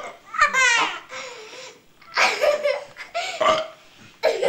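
Laughter in several bursts, one of them high-pitched and bending just under a second in.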